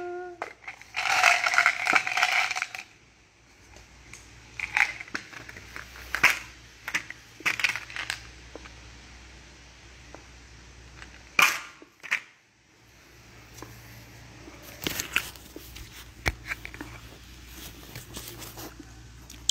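Clicks and taps from a small plastic bottle and its screw cap being handled and twisted, with a louder stretch of rustling about a second in and one sharp click about halfway through.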